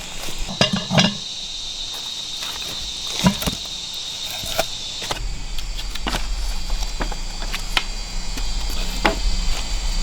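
Steady high-pitched insect drone, with scattered knocks and clicks over it and a low rumble coming in about halfway through.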